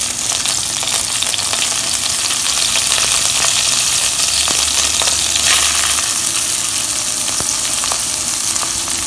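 Rice frying in hot ghee with whole spices in a nonstick kadai: a steady sizzle, with a few faint clicks.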